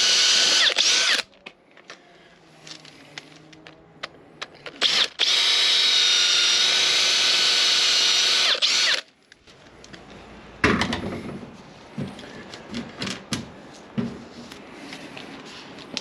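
Electric power drill drilling fixing holes for a batten, running steadily in two spells: one that stops about a second in and a longer one from about five to nine seconds. Light knocks and clicks follow near the end.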